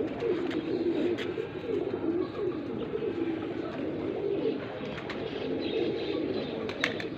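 Domestic pigeons cooing steadily, their low warbling calls overlapping without a break, with a couple of sharp clicks about a second in and near the end.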